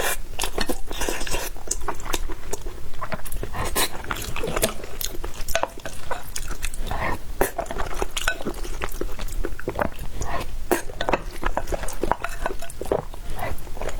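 Close-miked chewing and wet mouth sounds of someone eating, a dense run of small clicks and smacks.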